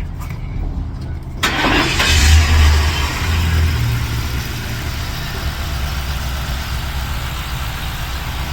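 2011 Ford Crown Victoria Police Interceptor's 4.6-litre V8 starting about a second and a half in, flaring up briefly, then settling into a steady idle. It runs smoothly, the cylinder 2 misfire cured by a new intake manifold and spark plug.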